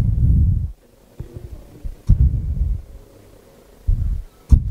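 Muffled low rumbling thumps from a headset microphone in several bursts, with a sharp knock near the end and no voice: a microphone fault or glitch.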